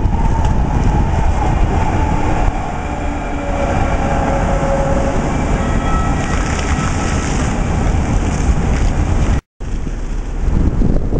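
Houston METRORail light rail train passing close by, its whine falling in pitch over the first few seconds, over a steady low rumble and the splash of fountain water. The sound cuts out for a moment near the end.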